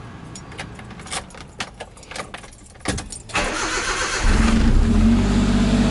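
Keys clicking at the ignition, then a short burst of starter cranking about three and a half seconds in, after which the van's engine catches and settles into a steady idle.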